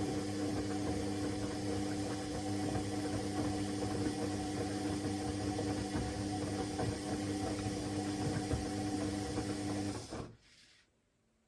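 Candy Aquamatic 100F washing machine running with a steady motor hum and whir, which stops about ten seconds in.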